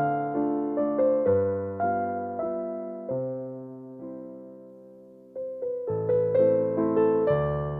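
Background piano music: gentle keyboard notes struck and left to ring, with one chord held and fading away in the middle before the playing picks up again.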